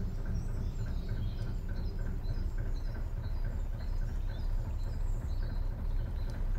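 Narrowboat's diesel engine running at low speed, a steady low rumble with a regular light tick, while small birds chirp.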